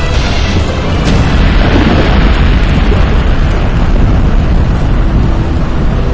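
A loud, continuous low rumble with no distinct pitch.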